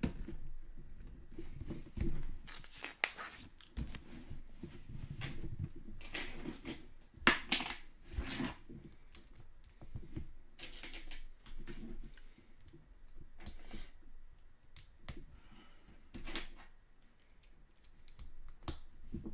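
Plastic Lego bricks clicking and rattling as pieces are handled and pressed onto a model: irregular small clicks and scrapes, with the loudest snaps about seven seconds in.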